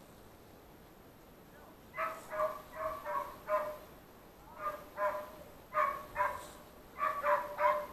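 Hunting dog barking in short, high barks, in runs of two to five about three a second, starting about two seconds in.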